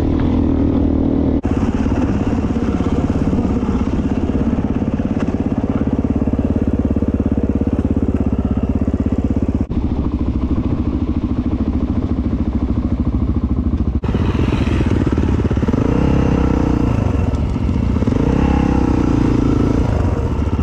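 Dirt bike engine running under way, heard from the rider's own bike. It drops out for an instant three times, and in the last several seconds its pitch rises and falls a few times as the revs change.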